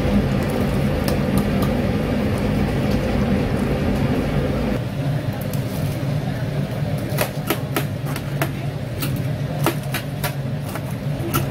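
Steady sizzle of hot oil in a commercial deep fryer over a low hum, ending abruptly about five seconds in. After that come scattered sharp metallic clicks of steel tongs against the wire rack and tray as whole fried chickens are handled.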